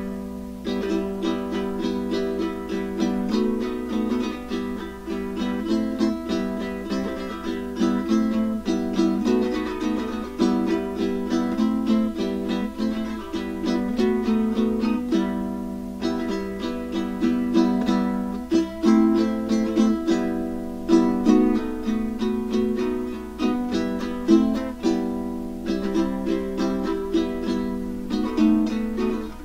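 Caramel CT-100 ukulele strummed in a steady rhythmic pattern, playing chords of a piece in E minor.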